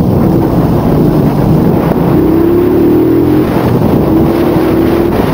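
Motorcycle engine running while riding, largely buried under loud wind buffeting on the mounted camera's microphone. A faint engine note rises slightly in pitch about halfway through and shows again near the end.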